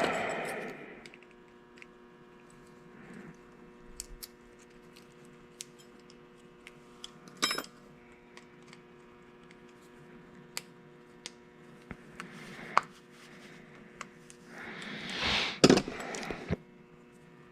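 Scattered small metallic clicks and taps from a trunk lock assembly being worked into its retaining clip, over a faint steady hum. A louder rustle and clatter comes near the end.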